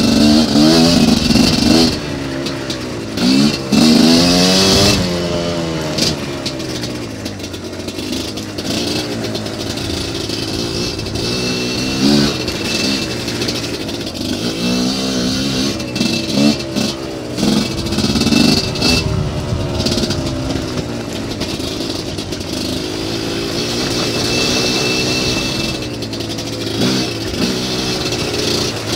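GPXMoto TSE250R 250cc dirt bike engine, heard from the moving bike, repeatedly revving up and dropping back as the rider works the throttle and gears along the trail. Loudest in the first few seconds.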